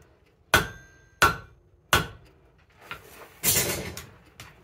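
Hand hammer striking a red-hot steel horseshoe on the anvil to cut a notch: three sharp blows about two-thirds of a second apart, the first leaving a brief metallic ring. A longer, noisier half-second sound follows about three and a half seconds in.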